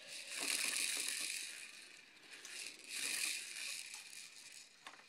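Small beads rattling inside the clear plastic dome of a baby activity jumper's spinner toy, worked by a baby's hand: two swells of rattling, about a second each.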